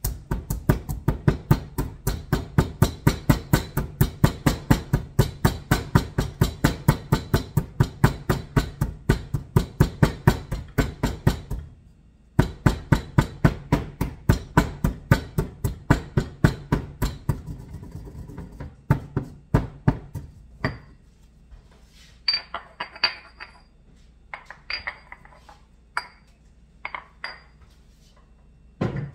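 Stone pestle pounding in a heavy granite mortar, about four strikes a second, with a brief pause about twelve seconds in; the pounding stops about twenty seconds in and a few lighter clinks and taps of stone follow.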